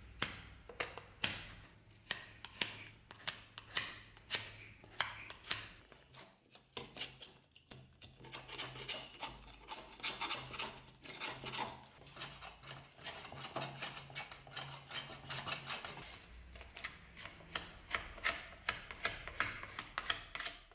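A hand blade scraping and shaving wood off an old wooden table leg in sharp repeated strokes, about two a second at first, then faster and closer together from about eight seconds in.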